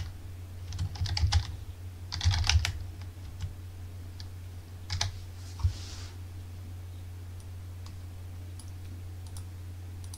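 Computer keyboard typing in two short bursts of quick keystrokes, then a few single clicks, over a steady low hum.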